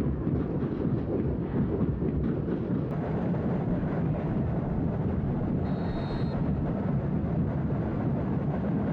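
Large football stadium crowd, a steady low roar of thousands of fans. A brief high whistle tone sounds about six seconds in.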